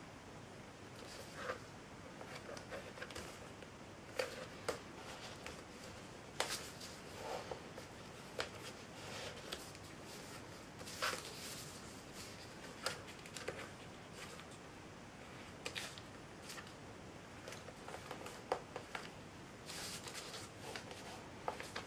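A sheet of printer paper being folded and creased by hand: irregular rustles and short crisp crackles as fingers press and run along the folds.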